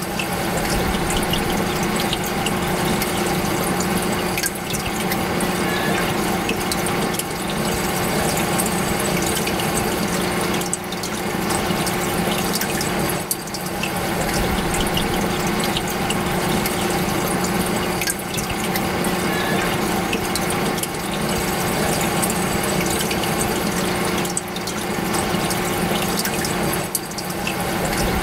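Saltwater reef aquarium's circulating water running steadily, with a pump's steady hum underneath.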